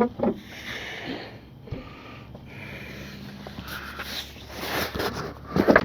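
Rear seat being shoved down to latch into its mounts, with clunks of the seat at the start and a cluster of louder knocks near the end, over heavy breathing from the effort.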